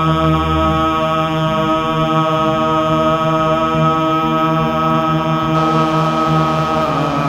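Low chanting held over a steady sustained drone, in a continuous music-like texture.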